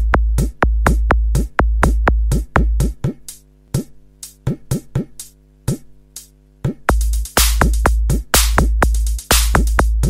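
Electronic intro music with a drum-machine beat: quick drum hits that drop in pitch over a deep bass. The bass drops out for a few seconds in the middle, and from about 7 s in it returns with hissy snare and cymbal hits added on top.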